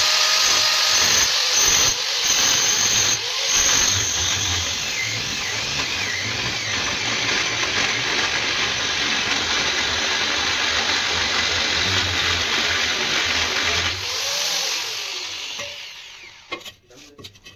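Handheld power tool working steel, running steadily with a dense hiss for about fourteen seconds, then winding down over a couple of seconds as it is switched off.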